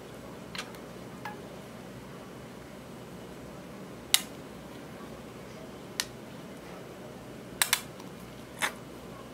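Small sharp clicks and taps from a plastic tube of purple liquid glitter eyeshadow being handled and squeezed over clear slime in a glass tray, about seven in all, the loudest about four seconds in, over a steady hiss.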